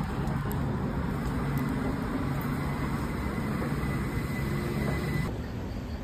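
Steady street noise with a low hum, like traffic, picked up while walking; it changes and drops a little about five seconds in.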